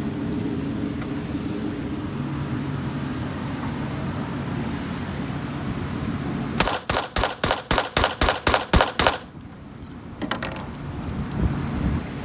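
Ruger 10/22 .22 semi-automatic rifle fired rapidly: about ten sharp shots at roughly four a second, emptying a ten-round magazine, over a steady low hum. A few faint knocks follow.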